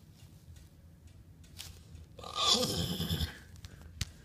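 A horse neigh, about a second long, with a wavering pitch, starting about two seconds in.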